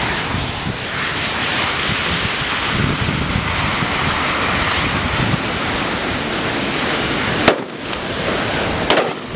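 A large mass of burning safety matches: a loud, steady rush of flame. A sharp crack comes about seven and a half seconds in, and the sound briefly drops after it.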